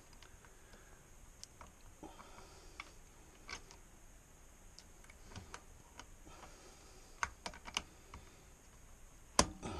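Scattered small plastic clicks and taps as a retaining clip is worked around the water-supply hose connection on a bidet toilet seat's inlet fitting, with a sharper click near the end.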